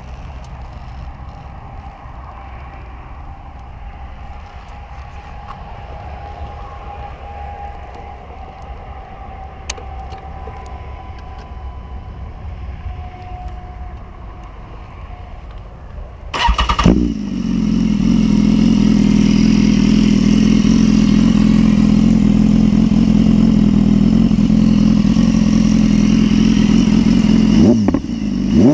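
BMW S1000RR inline-four with a Scorpion RP1-GP slip-on exhaust, started a little over halfway in after a stretch of low background hum. It catches with a loud burst and settles into a steady idle, with quick throttle blips right at the end.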